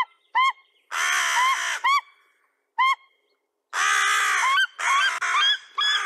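White-tailed eagle giving a series of short, sharp, high yelping calls, mixed with about four harsh caws from a crow that is harassing the eagle.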